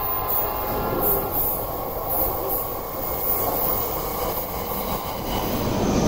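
JR E657 series limited-express electric train approaching along the platform: a steady rumble of wheels on the rails, with some high hiss from the wheels.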